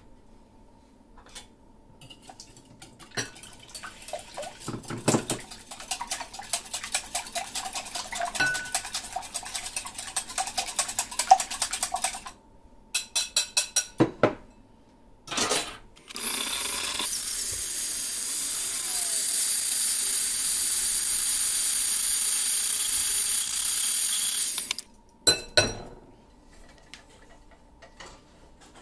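Raw eggs being beaten by hand in a glass bowl: a utensil clicks rapidly against the glass for several seconds, then slows to a few separate clinks. Later a steady hiss of unclear source runs for about nine seconds, followed by a couple of clinks.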